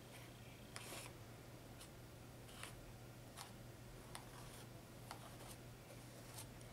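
Faint scrapes and clicks of a metal palette knife spreading light molding paste over a stencil, short strokes roughly once a second, over a low steady hum.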